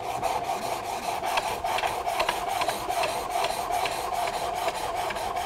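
Steel plane blade in a honing jig being rubbed back and forth on a coarse diamond sharpening stone: a steady, rough grinding rasp as the stone cuts the edge quickly.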